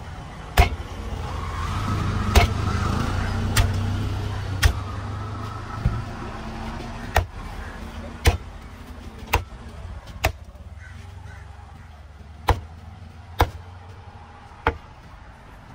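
Heavy cleaver chopping tuna on a wooden stump block: sharp chops about once a second, with a short pause partway through. A low rumble swells and fades under the first few chops.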